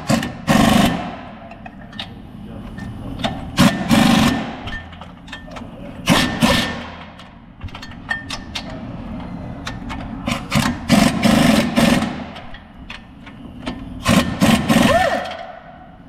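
Cordless impact wrench running in about five short bursts of a second or so each, working the bolts of the van's rear hub assembly behind the brake backing plate.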